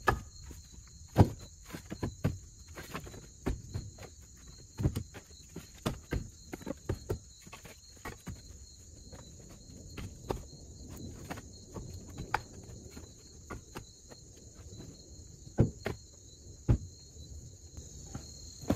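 Pieces of split hardwood firewood knocking and clunking as they are tossed by hand into a wheelbarrow, in irregular sharp knocks with short pauses between.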